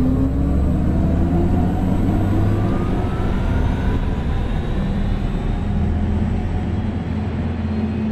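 Audi e-tron GT's synthetic electric driving sound (e-sound) as the car accelerates at low speed: a deep, steady hum under electronic tones that rise in pitch with speed.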